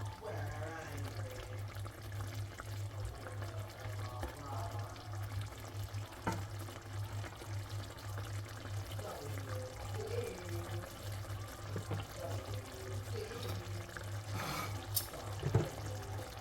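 Kitchen sounds over a steady low hum: liquid noise, with sharp clicks about six seconds in and twice near the end.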